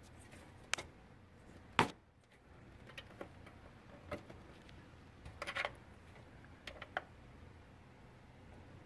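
Light, irregular clicks and knocks of a SATA power cable being fitted to an optical drive inside a desktop PC case. The sharpest knock comes about two seconds in, and there is a short run of clicks a little past the middle.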